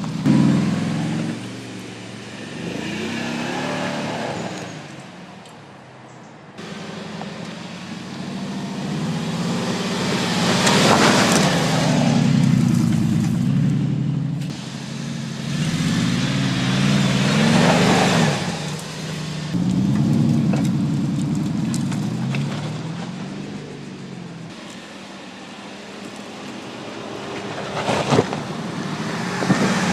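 Mercedes-Benz G500 SUV's V8 engine driving off-road, its pitch rising and falling over and over as the throttle comes on and off. Rushes of noise swell and fade several times, and a sharp knock comes near the end.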